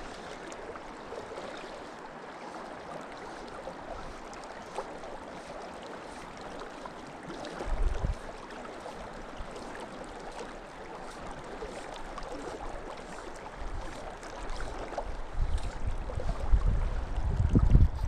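A river rushing steadily. Low rumbles hit the microphone about eight seconds in and again, louder, through the last few seconds.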